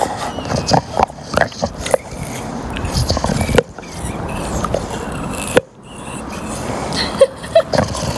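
English bulldog biting and chewing on a rubber ball, with irregular short clicks and squeaks from his teeth working the ball.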